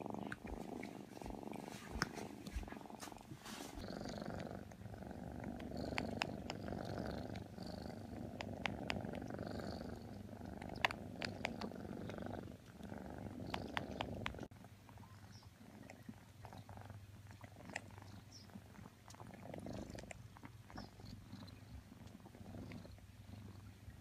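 Cat purring close up, a steady low rumble with scattered small clicks; it turns quieter about halfway through.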